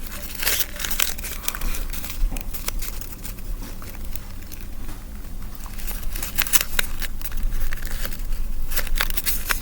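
Folded paper origami clic clac fidget toy being flipped and pressed by hand: irregular crinkling, rustling and soft clicks of paper panels snapping between shapes.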